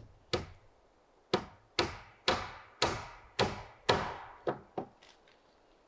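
Hammer blows on wood: nine sharp knocks at about two a second, each trailing off in an echo, the last two lighter and closer together.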